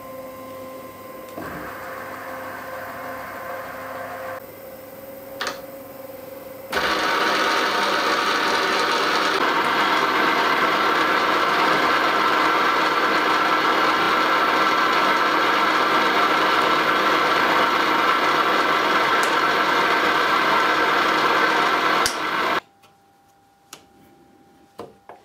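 Myford Super 7B lathe running. At first there is a steady, quieter hum from the motor and belt drive. About seven seconds in it jumps to a loud, even whirr of the spindle, belts and gear train, which cuts off abruptly near the end and is followed by a few light clicks of levers being moved.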